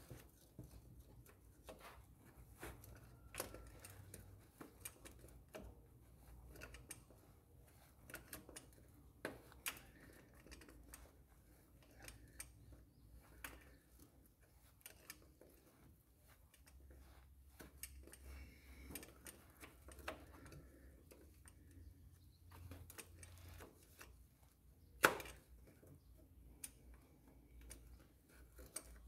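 Faint, irregular metallic clicks and taps of a wrench turning an oil filter housing cap loose under a van, with one louder clack about 25 seconds in.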